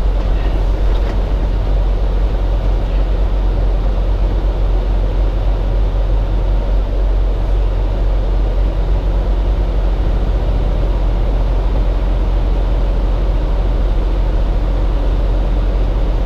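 Steady low drone of a 2018 Freightliner Cascadia semi truck's engine and road noise, heard inside the cab while driving, loaded to about 79,000 pounds.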